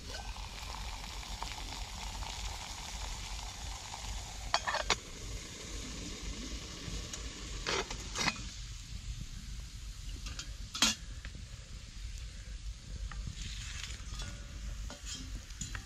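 Small wood fire hissing and sizzling under a metal cook pot, with a few sharp metallic clinks as the pot's lid and wire bail handle are handled and the pot is lifted off the fire.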